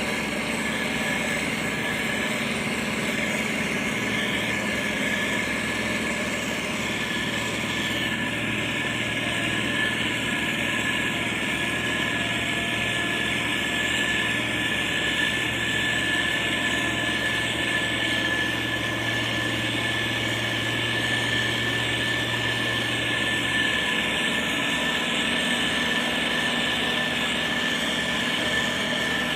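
Diesel engines of heavy road-construction machinery running steadily, with a constant high whine over the engine noise. A deeper hum joins about eight seconds in and drops away near the end.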